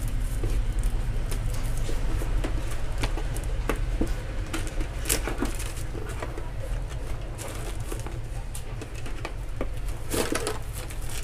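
Packaging box of a neckband earphone set being handled and opened by hand: scattered clicks, scrapes and rustles of the box and its inner tray, busiest near the end, over a steady low hum.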